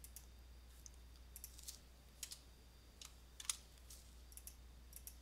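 Faint, sharp computer mouse clicks, about eight scattered through, the loudest about three and a half seconds in, over a low steady hum.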